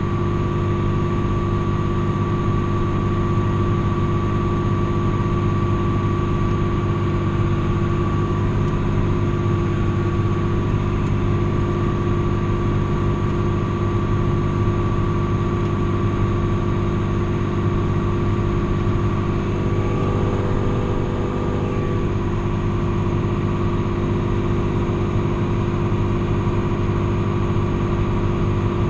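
John Deere tractor's diesel engine running steadily under load, heard from inside the cab as a constant drone with a steady whine above it.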